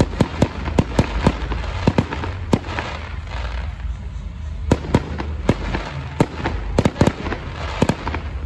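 Fireworks going off: many sharp bangs and cracks in quick, irregular succession over a constant crackling hiss and low rumble.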